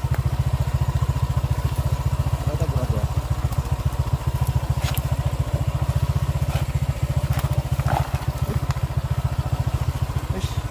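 Motorcycle engine running steadily, its firing heard as an even low pulsing, with a few sharp clicks about halfway through.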